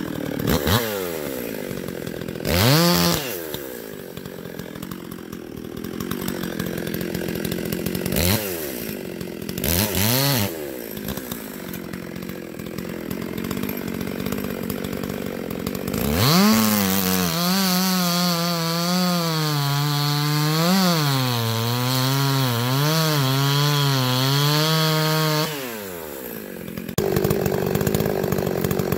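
Husqvarna 254XP two-stroke chainsaw, rebuilt and muffler-modded, idling and blipped up to full revs and back a few times. It is then held wide open for about nine seconds cutting through an ash log, its pitch dipping and recovering under load, before dropping back to idle.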